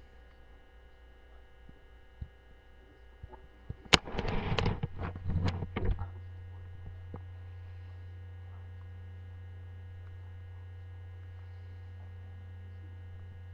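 Steady electrical mains hum. About four seconds in there is a sharp click, then roughly two seconds of loud, irregular noise, after which a stronger low hum carries on steadily.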